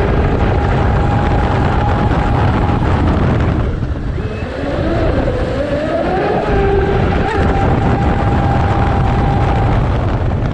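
Brushless electric drive of a Zelos 48 RC catamaran, heard from on board: a high motor-and-propeller whine over heavy water and wind rush. The whine drops away about three and a half seconds in as the boat slows, then climbs in pitch as it speeds up again and holds steady until it falls off near the end.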